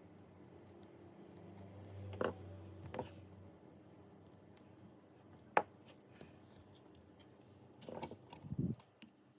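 A few separate sharp clicks and light knocks from small hard objects being handled: two about two and three seconds in over a faint low hum, one louder click in the middle, and a quick cluster ending in a dull low thud near the end.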